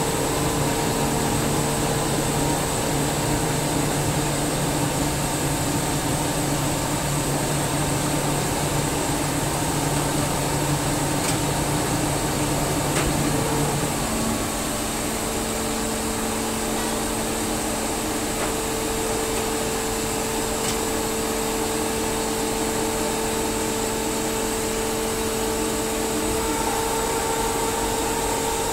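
SCR50M rotary screw air compressor running, a steady hum with a hiss over it. About halfway through, the pitch of the hum shifts and it becomes slightly quieter.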